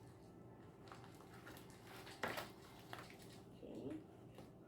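Quiet room with a few faint taps and rustles from hands fitting a lid onto a small handmade box; a faint voice murmurs briefly near the end.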